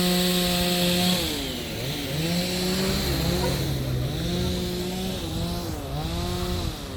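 Chainsaw running while cutting a fallen tree, revving up and dropping back several times, its pitch sagging under load in the middle.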